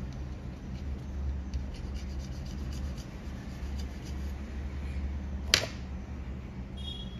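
Faint scraping and rubbing strokes of a hand tool on the phone's circuit board during RAM reballing, over a steady low hum. One sharp click comes about five and a half seconds in, and a short high chirp near the end.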